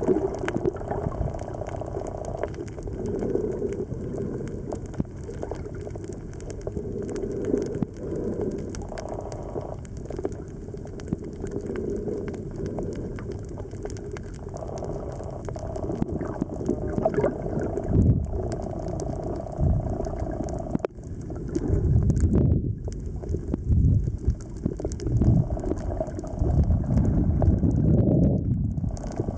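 Underwater water noise recorded below the surface: continuous gurgling and bubbling with a low hum. In the second half come louder low bubbling rumbles, several of them, the densest near the end.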